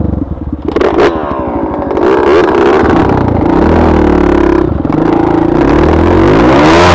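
Dirt bike engine running and revving up and down while riding, with a couple of sharp knocks about a second in and a hard rev that climbs in pitch near the end.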